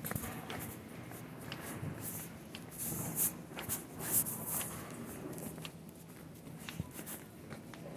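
Footsteps on carpet with rustling handling noise, as irregular soft clicks and hissy rustles. A cluster of louder rustles comes about three to four and a half seconds in.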